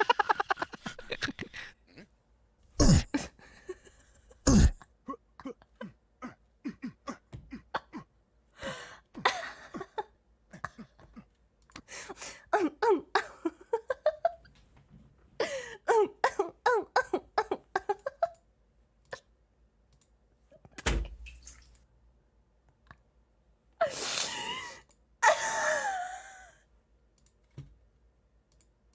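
A run of strange, gross sound effects: a few sharp thumps and many clicks, with stretches of gurgling noises that sound like stomach troubles.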